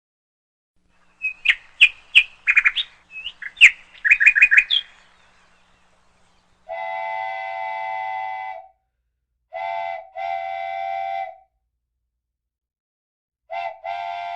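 A bird chirping in a quick run of short, sharp calls, then a horn sounding three long, steady blasts of several tones at once.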